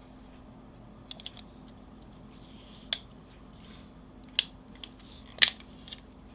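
Irregular sharp clicks and taps of a Nokia 515 phone's parts being handled and fitted back together, with faint rubbing between them. There is a small cluster of clicks about a second in and single clicks after that. The loudest click comes about five and a half seconds in.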